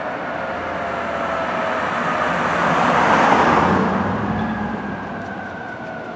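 A car passes close by, its tyre and engine noise swelling to a peak about three seconds in, then fading. Under it runs the faint, nearly level tone of a fire apparatus siren.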